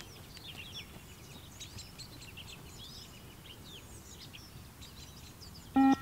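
Small birds chirping and twittering throughout. Near the end there is a single short, loud electronic beep from the multi-stage fitness (beep test) recording, marking the end of a 20 m shuttle.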